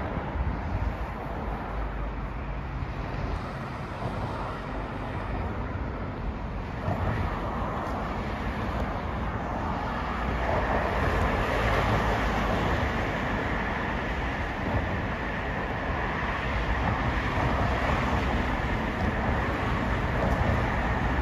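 Road traffic noise from cars passing on a wide road: a steady rush of engines and tyres that grows louder about halfway through.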